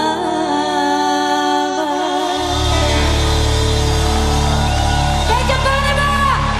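Two women's voices singing a Bulgarian folk song in close harmony, holding long notes; about two seconds in, a band with a heavy bass comes in beneath them.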